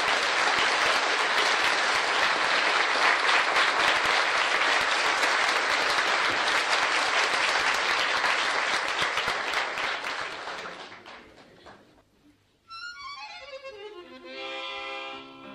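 A live audience applauding, dense and steady, then fading out after about eleven seconds. About a second later instrumental music starts with a quick descending run of notes settling into held tones.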